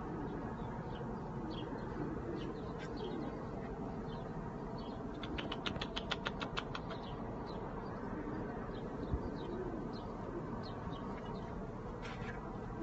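Domestic pigeons in a loft: short high chirps scattered throughout, and a brief flurry of wing flaps about five to seven seconds in, over steady low background noise.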